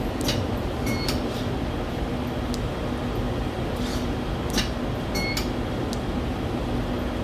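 Steady machine hum with a faint low tone, broken by a few sharp clicks and two brief high chirps, about a second in and about five seconds in.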